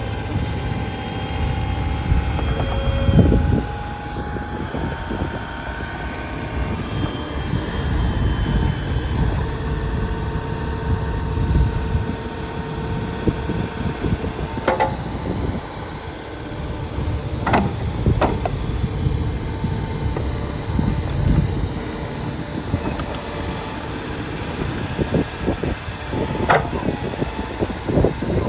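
Case 590 Super N backhoe's diesel engine running steadily with a low rumble, quiet for such a machine, with faint whining tones that shift in pitch. Several sharp knocks come in the second half.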